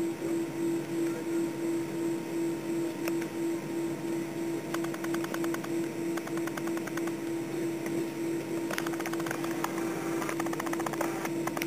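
Airbus A320 cabin noise while taxiing: a steady, pulsing drone at one pitch over a hiss of air, with a couple of short runs of faint rapid ticking.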